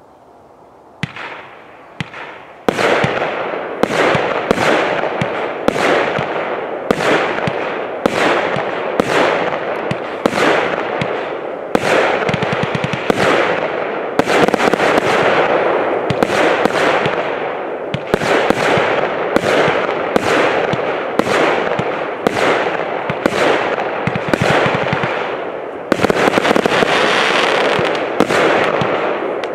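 'Yess!' consumer fireworks cake from Engelsrud Fyrverkeri firing shot after shot. It starts about a second in with a few single shots, then fires a rapid string of roughly one to two shots a second, the noise of the bursts filling the gaps between them.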